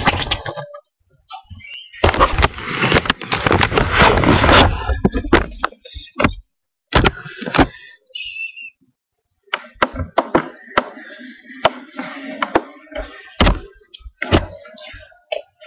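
Rustling, bumps and knocks of a laptop being carried and handled, heard through its built-in microphone, with hushed voices. A long stretch of loud rubbing noise comes near the start, then scattered sharp knocks.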